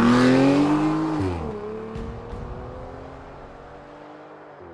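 A vehicle engine revving: its pitch climbs for about a second, then drops and settles into a steady hum that slowly fades. Two faint clicks come about two seconds in.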